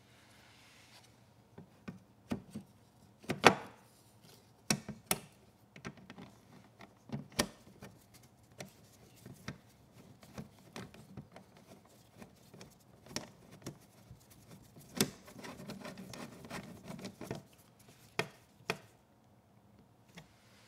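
Handwork on a Yamaha EF3000iSE inverter generator's side maintenance cover as it is fitted over the spark plug opening and its screw is driven in with a screwdriver: scattered clicks and knocks of the cover and tool against the housing, the loudest a sharp knock a few seconds in, with a short stretch of scraping about three-quarters of the way through.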